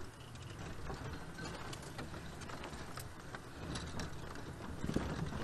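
Open game-drive vehicle driving off-road over rough ground: the engine runs with a low rumble while the body and fittings rattle and knock.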